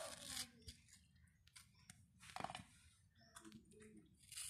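Faint sounds of a kitchen knife cutting through a ripe mango's peel and flesh: soft scrapes and small clicks, with one sharper click about halfway through.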